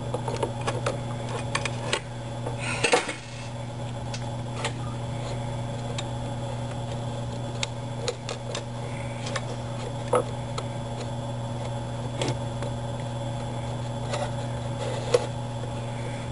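Scattered small metallic clicks and clinks of a nut being worked into place with needle-nose pliers and fingers on a 3D printer's Z stage. There are louder clinks about three seconds in and again around ten and fifteen seconds, over a steady low hum.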